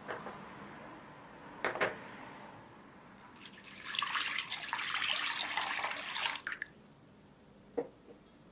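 Lukewarm water poured in a stream into a wooden bowl onto dry yeast, splashing for about three seconds from about three and a half seconds in. A few light knocks come before it and one after.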